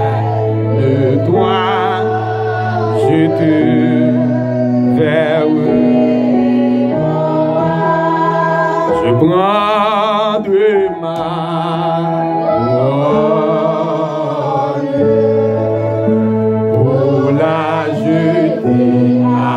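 A man singing a slow worship song into a handheld microphone, his voice wavering with vibrato on long held notes, over sustained accompaniment chords that change every second or two.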